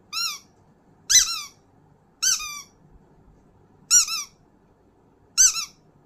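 Rubber squeaky toy squeezed five times: short high-pitched squeaks, each bending up and then falling in pitch, spaced a second or so apart.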